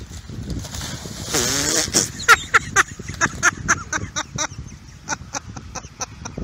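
A dog splashing as it bounds through shallow floodwater, a quick rhythmic run of splashes about four to five a second that fades toward the end. A short voice-like call comes about a second and a half in.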